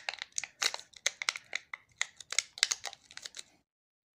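Crinkling and crackling of a phone's foil-wrapped pouch battery being handled in the fingers: quick irregular clicks that stop abruptly about three and a half seconds in.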